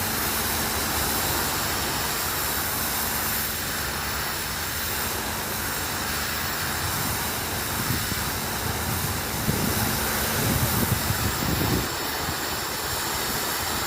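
IPC PW-H50 high-pressure washer running, its water jet hissing steadily over the machine's hum. There are louder uneven surges about two-thirds of the way through.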